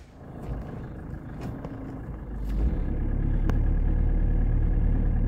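Car driving: engine and road rumble heard from inside the car, a steady low rumble that comes in strongly about two and a half seconds in, with a single click a second later.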